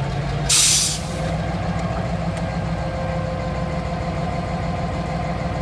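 EMD MP15 switcher locomotive's diesel engine idling steadily. A short, sharp hiss of air cuts in about half a second in.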